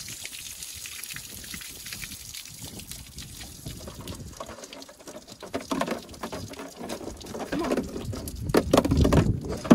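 Water trickling and dribbling out of bullet holes in plastic one-gallon jugs. From about halfway in it grows louder and more irregular, with the jugs knocking and sloshing as they are lifted and moved.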